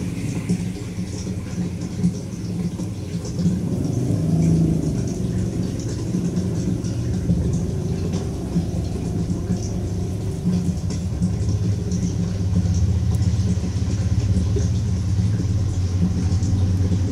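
A steady low motor hum, running evenly throughout.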